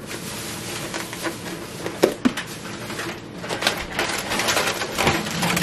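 Aluminium foil crinkling and rustling as a hand digs into a foil wrap, with a couple of sharper clicks about two seconds in and the crackle getting busier toward the end.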